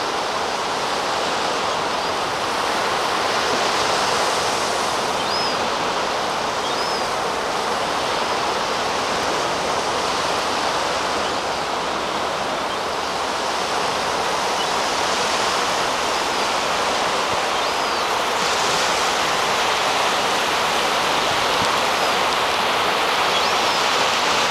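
Steady wash of North Sea surf on a sandy beach, with a juvenile herring gull giving several short, thin, high begging whistles now and then.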